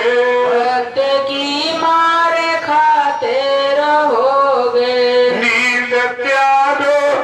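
A man singing a Hindi devotional bhajan in long, drawn-out notes with musical accompaniment.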